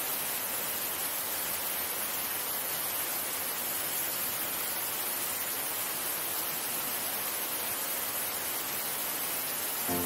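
Small forest waterfall, water rushing steadily over rocks: a constant, even hiss.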